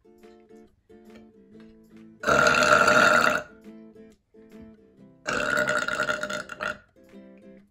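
A woman burping loudly twice, each burp over a second long, the second a little longer, over soft plucked-guitar background music.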